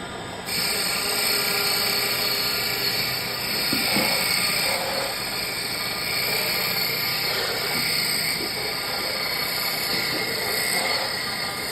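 Mini CNC wood bead-making machine running, a steady mechanical whine with the noise of its cutter working wood. The sound steps up in level about half a second in.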